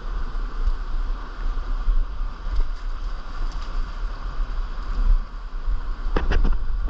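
Fast river water rushing over rapids, with wind buffeting the microphone as a low rumble. A quick cluster of sharp sounds stands out about six seconds in.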